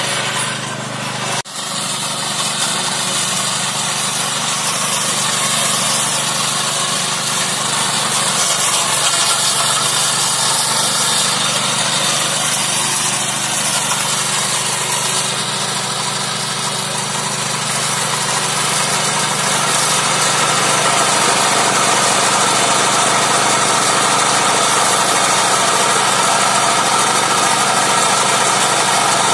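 Neva walk-behind tractor's small single-cylinder petrol engine running steadily under load, driving a Zarya rotary disc mower through grass and weeds. The sound drops out briefly about a second and a half in.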